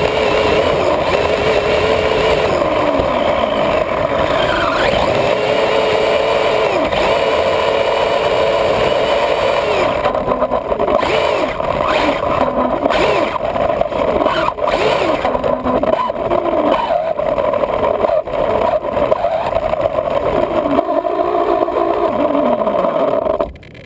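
Radio-controlled car's motor and drivetrain whining, heard from on board, as it drives over grass, the pitch sliding down and up again and again with the throttle. It cuts off sharply near the end.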